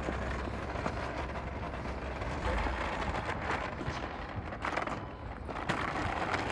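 Small plastic child's shopping trolley rolling and rattling over outdoor pavement, over general street noise with a low rumble of wind or traffic in the first couple of seconds.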